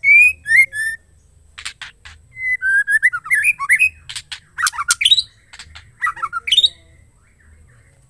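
Female white-rumped shama (murai batu) singing: short phrases of clear whistled notes that slide up and down, mixed with sharp clicking chips, with a pause near the end.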